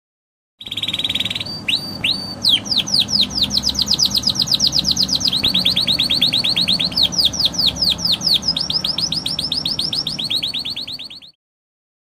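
Domestic canary (Serinus canaria) singing one long continuous song. It opens with a fast trill and a few separate whistled notes, then runs into long series of rapid, repeated downward-slurred notes, about eight to ten a second, changing pace now and then. The song stops abruptly near the end.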